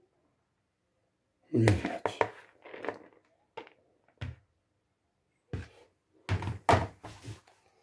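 Slotted metal skimmer scooping cooked rice out of a plastic bowl and knocking it down into a dough-lined pan: a series of knocks and thunks with pauses between them, the loudest grouped about a second and a half in and again near the end.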